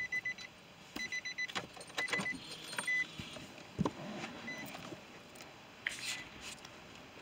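A car's warning chime sounding in short runs of quick high beeps about once a second, fainter after the first few seconds, as the driver's door is opened. A few sharp clicks of the door and handling come in between.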